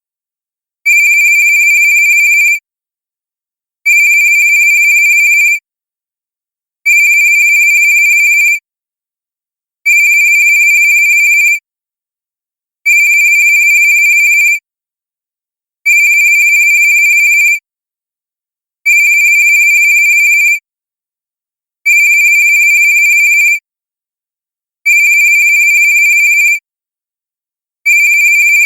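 Cartoon-style cell phone ringtone: a steady, high electronic tone that rings for a little under two seconds and repeats every three seconds with silence between, about ten rings in all.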